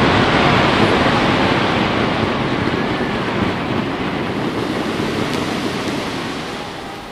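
Fireworks display heard as a dense, continuous rushing noise that dies away steadily over the last few seconds as the bursts end.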